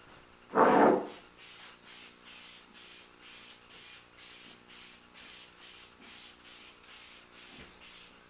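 Aerosol can of spray lacquer hissing in short, even pulses, about two and a half a second, as it coats the chest. It is preceded about half a second in by one brief, louder noise.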